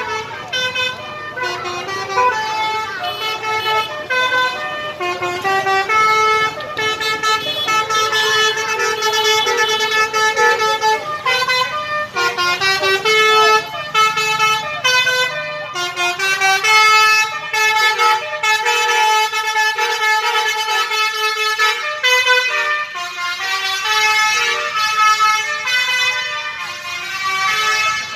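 Basuri V3 telolet bus horn, a multi-tone air horn, playing a long running melody of quick stepping notes.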